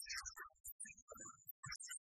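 Faint background music, choppy and broken up.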